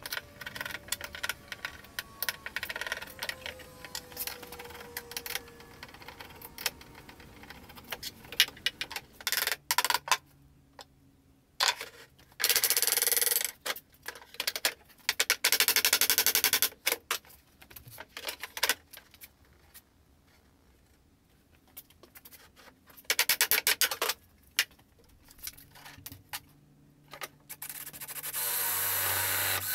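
Bench work on a wooden cabinet door frame: scattered knocks and clicks of wood and hand tools, broken by several runs of a cordless drill-driver lasting a second or two each. The last run starts a couple of seconds before the end.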